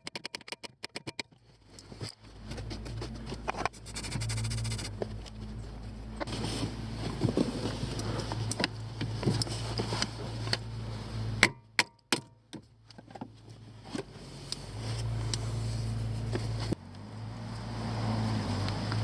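Hand tools working on a car's steering shaft universal joint: scattered sharp metal clicks and knocks, with a fast even run of clicks in the first couple of seconds, over a steady low hum.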